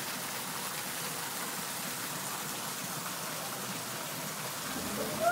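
Small artificial waterfall splashing steadily into a pond.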